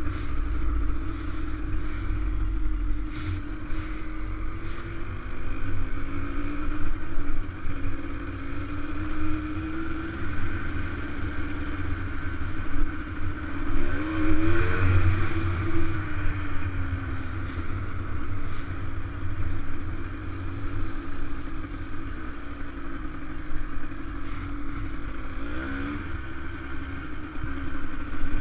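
Dirt bike engine running while riding along a gravel track, its pitch wavering with the throttle, with a sharp rev up and back down about halfway through and a shorter one near the end.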